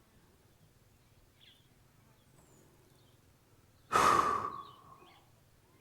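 A person lets out a loud sigh about four seconds in, after a quiet stretch with a few faint bird chirps.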